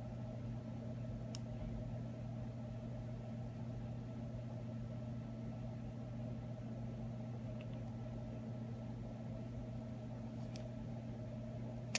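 Steady low hum with a faint small click about a second and a half in and a few faint ticks near the end.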